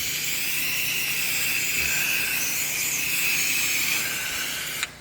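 Soft-wash spray gun hissing steadily as it sprays a sodium hypochlorite (chlorine) wash mix, then cutting off suddenly near the end.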